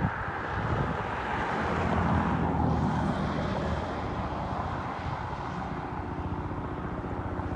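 Steady rush of creek water flowing out of the marsh into the lake, with wind on the microphone. A passing vehicle swells the sound about two to three seconds in, then fades.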